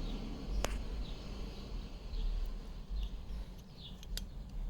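A worn bearing from a 2012 Honda CBR1000RR spun by hand: faint rough rolling with two sharp clicks and a few small squeaks. This is the bad bearing behind the grinding heard while riding.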